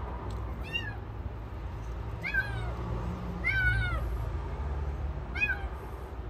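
A kitten meowing four times: short, high-pitched calls that rise and fall in pitch, over a steady low rumble.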